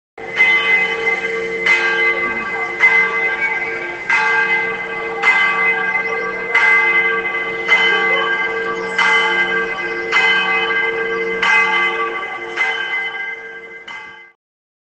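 A single church bell tolling, struck about every second and a quarter, about a dozen strokes, each ringing on into the next, then cut off suddenly near the end.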